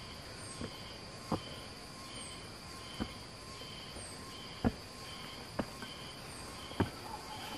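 Insects chirping steadily, with a short high call repeating about every three-quarters of a second. Over it, a hiker's footsteps on the trail land as sharp irregular knocks, roughly one a second.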